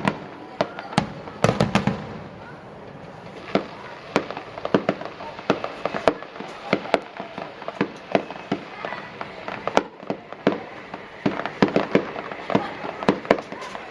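Aerial fireworks bursting: a steady run of sharp reports, a few heavier booms near the start, thickening into a rapid crackle of many small bursts toward the end.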